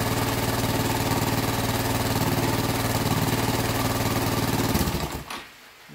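Engine of a restored Linhai ATV idling steadily with an even firing rhythm, then dying away and stopping about five seconds in.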